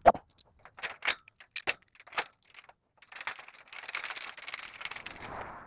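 Metal hardware being handled at a steel tube gate: sharp separate clinks, then from about three seconds in a quicker jangling rattle, as nuts and bolts are fitted by hand to mount a wheel on the gate's bottom rail.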